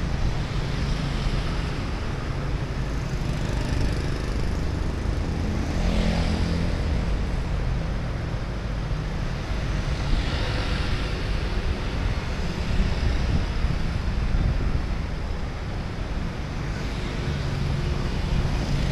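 Steady road traffic noise on a busy city road: a continuous rumble of engines and tyres that swells now and then as vehicles pass close by.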